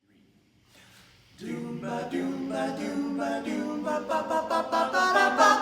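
A cappella vocal group singing a wordless chordal introduction in close harmony. It comes in about a second and a half in and swells toward the end.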